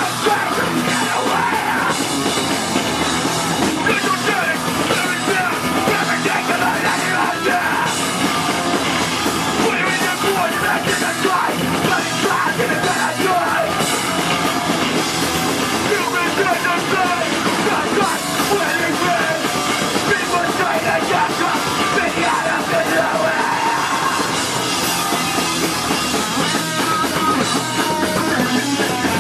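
Hardcore punk band playing live at full volume: distorted guitars and a pounding drum kit, with yelled vocals over the top, dense and unbroken.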